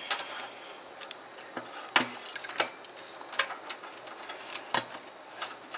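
Irregular clicks and light rustling of a PC power cable's plastic connector being handled and pushed into its socket on the motherboard.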